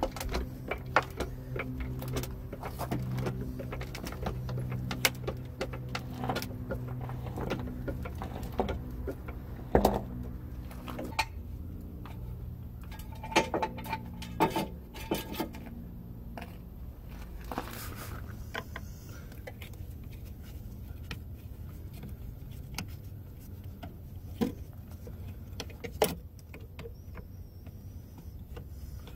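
Hydraulic floor jack being pumped to lift a car: a string of sharp metallic clicks about a second apart over a low steady hum. After about twelve seconds come scattered clicks and clinks of metal hand tools.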